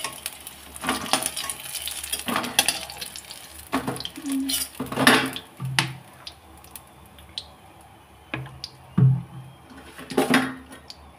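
A metal utensil scrapes and clinks against a kadhai as fried pumpkin pakoras are lifted out onto a steel plate, in irregular clatters. A faint sizzle of the hot frying oil fades out about halfway through.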